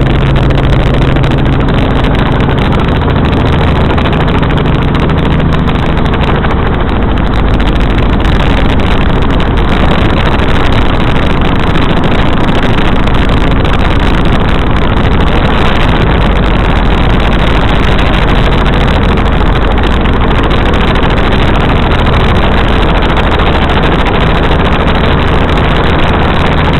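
Loud, steady helicopter engine and rotor noise that runs without a break.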